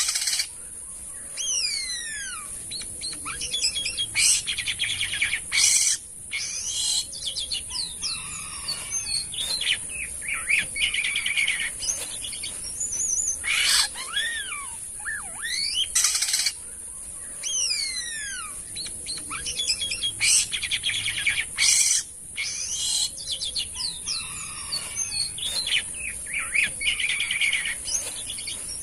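Jalak kapas starling singing a busy, varied song: quick falling and rising whistles mixed with harsh buzzy notes and sharp clicks, the same phrase coming round again about every eight seconds. A steady high hiss lies underneath.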